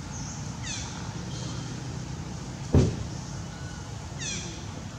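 Steady low background rumble, broken a little past halfway by one sharp thump, the loudest sound. Twice, near the start and near the end, comes a short run of high, quickly falling chirps.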